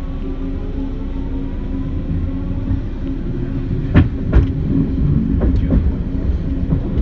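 Detroit People Mover car running along its elevated steel track, heard from inside: a steady low rumble with a constant tone and a faint rising whine. Sharp clacks and knocks come about four seconds in and again a second and a half later.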